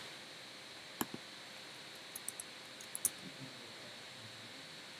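A few faint, short clicks from a computer mouse over low hiss: one about a second in, then a quick scatter of several more between about two and three seconds in.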